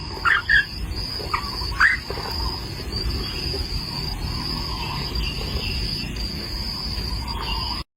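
Insects trilling in one steady shrill tone, broken by a few brief gaps. A few short rising chirps come in the first two seconds, over a low rumble.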